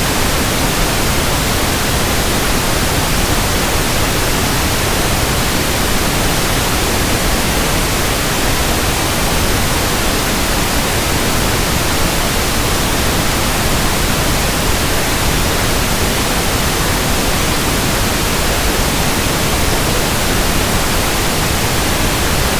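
Pink noise test signal: a steady, even hiss across the whole frequency range, without change or break, used for measuring a sound system's frequency response.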